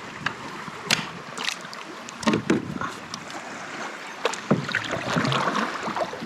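Water splashing and sloshing around a kayak, with scattered sharp knocks against the hull.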